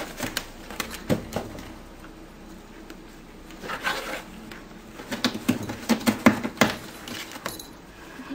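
A cat pawing and clawing at a cardboard box: a series of irregular scratches, taps and knocks, with a scrape about four seconds in and a quick run of taps from about five to seven seconds.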